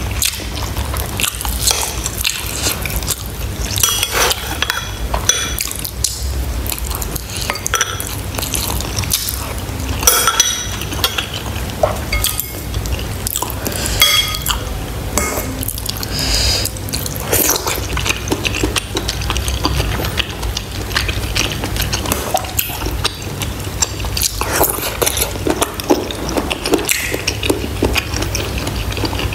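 Close-miked eating of pork bone soup: a metal spoon clinking and scraping in a ceramic bowl, broth slurped and dripping, and chewing, with many small sharp clicks over a steady low hum.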